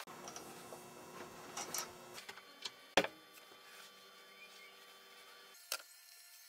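Scattered light clicks and knocks of small metal parts being handled, with one sharp click about three seconds in, over a steady electrical hum that cuts off near the end.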